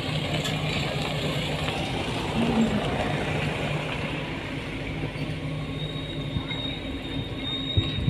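Steady mechanical rumble and low hum of construction-site machinery, with a thin high whine joining in about five seconds in.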